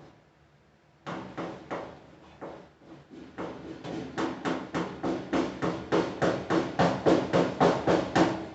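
Dryer drum support roller spun by hand on its shaft after a light spray of WD-40, giving a fast, even clicking at about four knocks a second that starts about a second in and grows louder.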